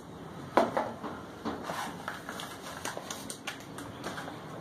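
Handling noises at a workbench: a sharp knock a little over half a second in, then a run of lighter, irregular clicks and taps as things are moved about.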